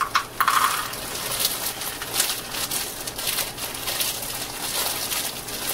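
Frozen peas pouring from a bag into a saucepan of boiling water: a steady patter of many small hard hits.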